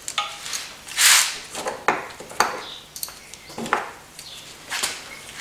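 Irregular metallic clinks and clatter of a ratchet, deep socket and removed diesel glow plugs being handled, with short scuffing rustles in between; the loudest rustle comes about a second in.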